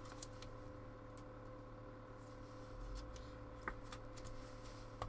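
Trading cards being handled and flipped through: a few faint sharp clicks and light rustles, heard over a steady low electrical hum.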